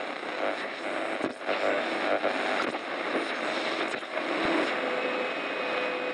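Title-card intro sound: a dense, steady noisy wash with faint tones in it, fading out near the end.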